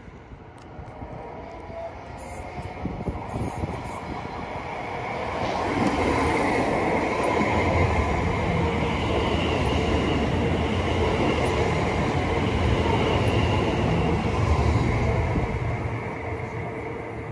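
A Greater Anglia Class 720 Aventra electric multiple unit passes close by on the adjacent track. Its wheels rumble on the rails with a high steady whine above them. The sound builds over the first few seconds, stays loud through the middle, and fades near the end.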